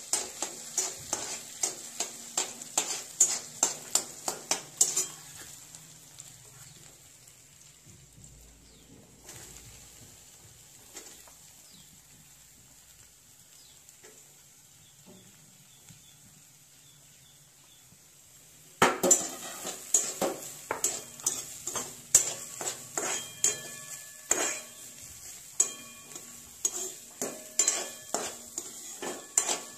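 A metal spoon stirring and scraping onion, cumin and ginger-garlic paste frying in a little oil in a metal kadai: a fast run of clicks against the pan over a light sizzle. The stirring stops about five seconds in, leaving only faint sizzling, and starts again loudly about nineteen seconds in.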